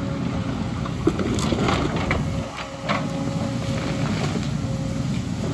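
JCB crawler excavator's diesel engine running steadily with a thin steady whine, as the bucket digs and lifts rocky landslide debris; stones knock and clatter several times in the first few seconds.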